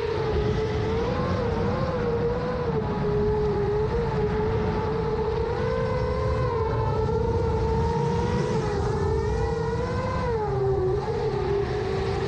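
A 7-inch FPV quadcopter's brushless motors and propellers whining in flight: one steady tone that wavers slightly with throttle and dips briefly near the end. Wind rushes over the onboard microphone underneath.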